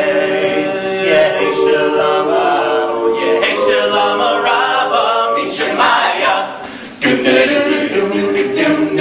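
A cappella vocal group singing sustained chords in close harmony, no instruments. About seven seconds in the singing fades, then cuts abruptly to a louder passage.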